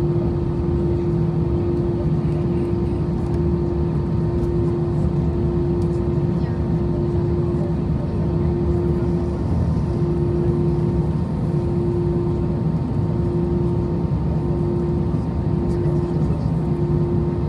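Steady cabin drone of an Airbus A320-214 with its CFM56-5B engines running, heard from inside the passenger cabin: a deep even hum with a steady droning tone above it. About halfway through, that tone starts dropping out briefly about every second and a half.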